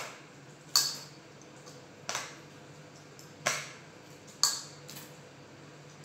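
Small metal utensil tapping against a steel bowl about six times, irregularly spaced, each a sharp click with a short ring, while a zucchini is being hollowed out.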